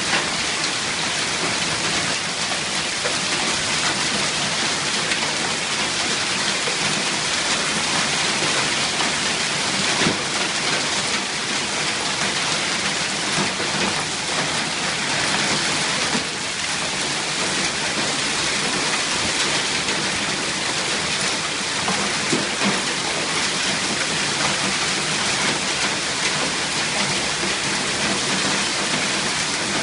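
Hailstorm: hail and heavy rain pelting down in a dense, steady patter of countless small impacts.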